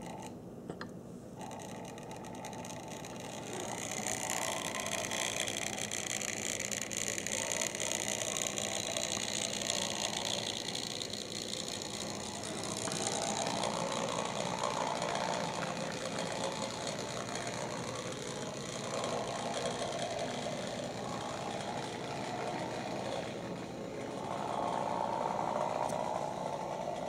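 HO-scale Bowser 4-8-2 model steam locomotive running on the track, its motor and gearing whirring and rattling. It grows louder about four seconds in, then swells and fades.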